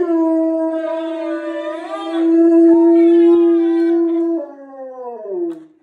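Rottweiler howling: one long, steady held note that slides down in pitch near the end and fades out.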